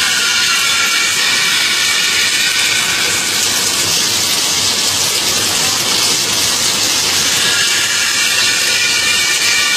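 Steady high-pitched hiss of the machinery of a running corn-grits kurkure snack processing line.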